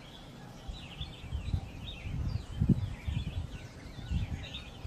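Small birds chirping busily in the background, many short quick calls, with a run of soft low thumps from about a second in, the loudest near the middle.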